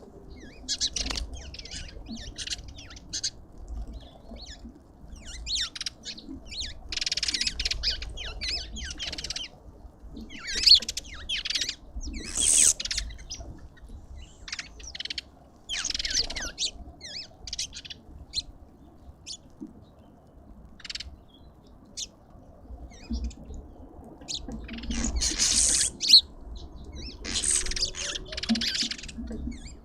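Lovebirds calling in short, high-pitched, shrill chirps and screeches, coming in irregular clusters, the loudest about a third of the way in and again near the end.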